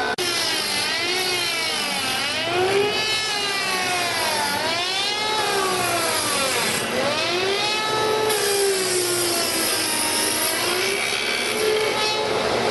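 Spindle moulder's spinning cutter shaping a wooden workpiece on a copying ring. The cutting whine starts suddenly and sweeps up and down in pitch again and again.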